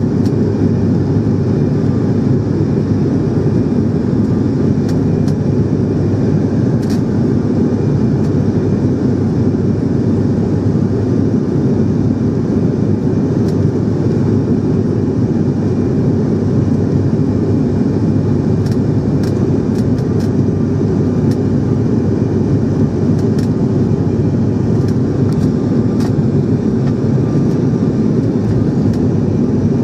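Steady, unbroken drone of a passenger aircraft's engines and airflow heard from inside the cabin.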